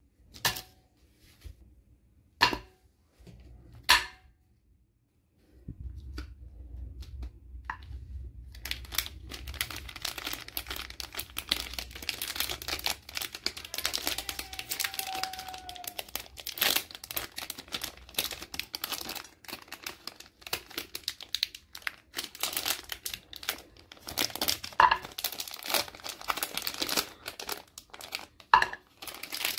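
Plastic and foil chocolate-bar wrappers being torn open and crumpled by hand, a dense crinkling crackle that runs on from about five seconds in. Before that, a few separate sharp taps.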